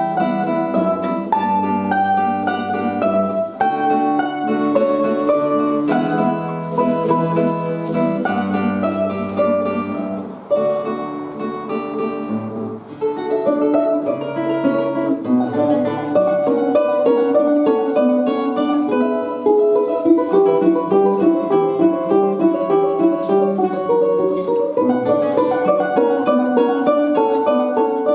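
Instrumental music: a plucked string instrument plays a quick melody of short repeated notes over held lower accompaniment notes.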